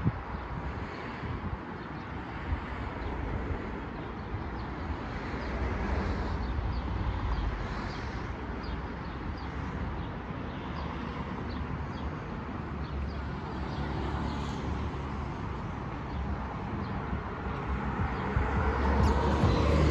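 Road traffic ambience: cars going by on the road beside the pavement, with a car passing louder near the end.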